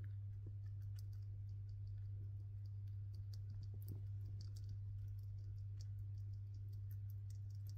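A chipmunk nibbling food held in its forepaws: many faint, rapid, irregular ticks of its teeth on the morsel, over a steady low hum.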